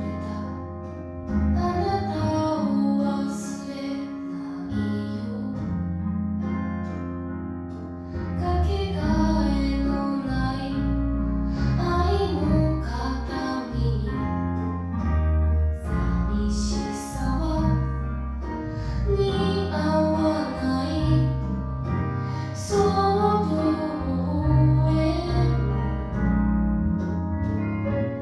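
Background music: a slow song with a female voice singing over an instrumental accompaniment with sustained bass notes.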